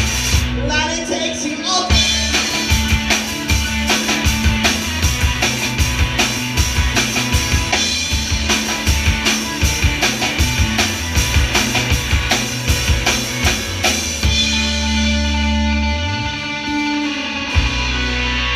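Live rock band playing an instrumental passage on electric guitars and drum kit, with fast, steady drumming. About fourteen seconds in the drums drop out, leaving the guitars ringing out held chords.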